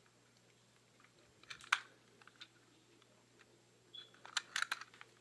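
Faint small clicks and taps of a plastic toy train being handled and turned over in the hands. There is a short group about one and a half seconds in and a busier run of clicks near the end.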